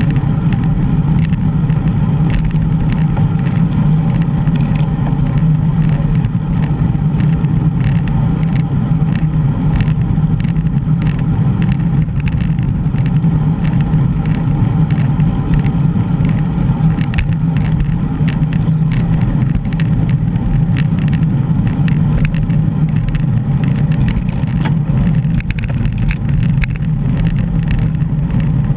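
Steady rumble of wind and road noise from a GoPro riding on a bicycle, with frequent small clicks and rattles throughout.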